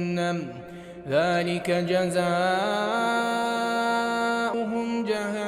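A man chanting Quran recitation in the melodic tajweed style, with long drawn-out notes. A held note breaks off just after the start; about a second in, a new phrase glides upward and then holds one steady pitch.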